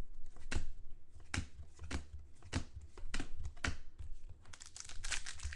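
Football trading cards and card-pack wrappers being handled by hand: scattered sharp clicks and crinkles as cards are shuffled and wrappers rustle, coming thicker a little after four seconds in.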